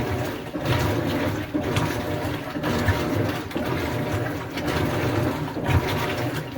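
Maytag washing machine running with water churning and sloshing in the tub, in uneven surges over a low rumble.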